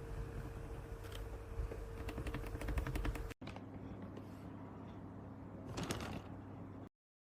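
Typing on a mechanical keyboard fitted with Gateron switches: a run of quick keystroke clicks, a sudden cut about a third of the way in, then a short flurry of keystrokes near the end before the sound stops dead.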